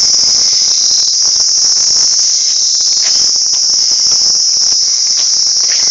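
Steady high-pitched chirring of crickets in a continuous chorus, with a few faint scuffs and knocks underneath.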